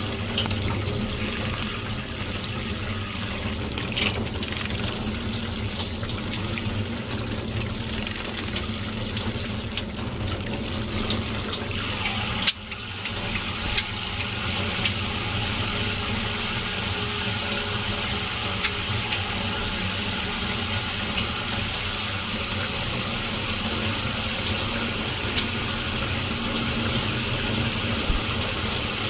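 Water running steadily from a tap, with a brief dip about twelve seconds in.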